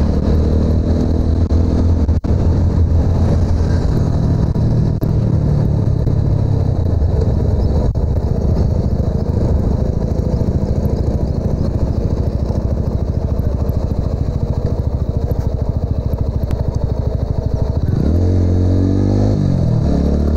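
TVS Apache RTR 200's single-cylinder engine and exhaust running steadily while the motorcycle is ridden along a road. Near the end the revs rise, fall and rise again, as with a gear change.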